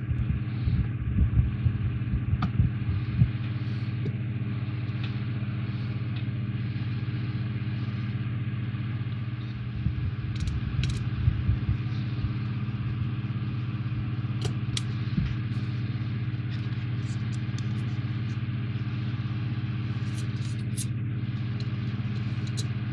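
Steady low electrical hum throughout, with light clicks and taps of small plastic model parts and screws being handled while two small screws are driven in, mostly in the first few seconds and again about ten seconds in.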